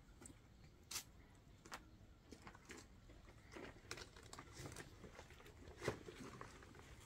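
Near silence broken by faint, irregular clicks and light taps, the strongest about a second in and near six seconds.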